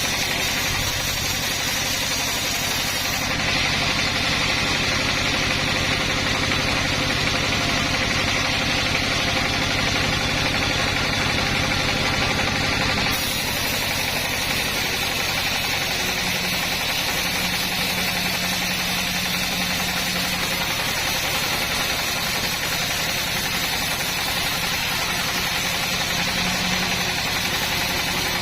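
A sawmill's engine running steadily under a dense mechanical noise. The sound changes abruptly a little under halfway through, its upper hiss shifting at once.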